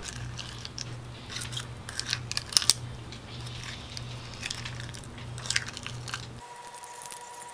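Plastic spoon scraping and digging fishbowl slime, clear sticky slime packed with small beads, out of a plastic container: irregular crunching and clicking, with a few sharp clicks about two and a half seconds in.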